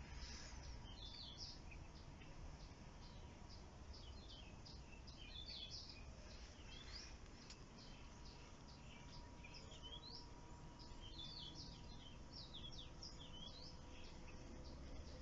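Faint birdsong: many short, quick chirping notes, coming in clusters throughout, over a low rumble of wind or handling noise.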